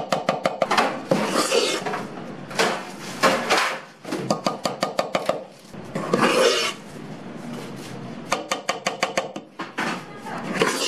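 Metal spoon scraping cake batter out of a stainless steel mixing bowl into a tube cake pan: several short runs of quick rasping, clicking strokes against the bowl.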